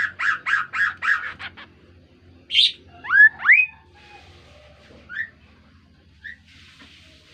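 Kaso-kaso bird calling. It opens with a quick run of clipped notes that fades within the first second and a half. Then come two loud rising whistles about three seconds in, and a few single short notes after them.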